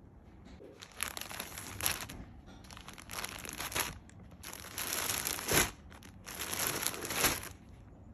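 Clear plastic poly bags around new clothes crinkling as they are handled, in four bursts of about a second each.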